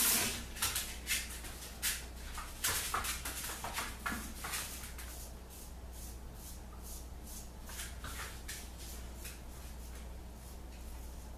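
Red Imp wedge straight razor scraping through lathered stubble in short strokes, a quick run of them in the first few seconds and lighter, sparser ones after. The owner feels the blade may have a rolled edge and needs a touch-up.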